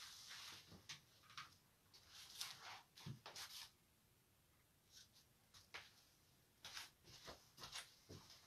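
Near silence, broken by faint, scattered rustles and soft knocks as people move about a small room and handle a book, with a low knock about three seconds in.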